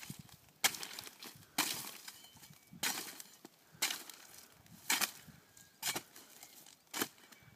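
A jimador's coa, a long-handled flat-bladed harvesting tool, chopping the leaves off an agave heart: seven sharp chops, roughly one a second.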